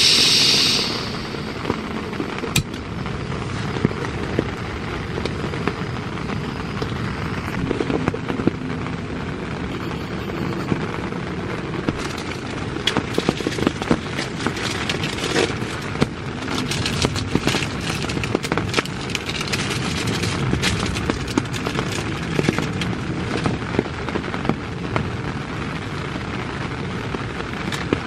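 Rain pattering on tent fabric, the drops tapping more densely from about halfway through, over a canister gas stove burning under a pan. A short hiss opens it as the stove is lit.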